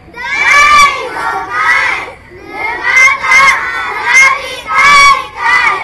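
A group of children shouting a call together in a series of loud phrases: the kick-off call that starts the fireworks display.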